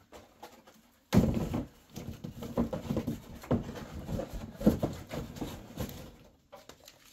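Cardboard and moulded-pulp packaging being handled and cleared away: irregular rustling and scraping with short knocks. It starts suddenly about a second in and dies down near the end.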